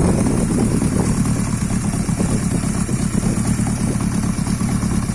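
Drag-race engine in a scrap-built car idling steadily with a fast, even putter.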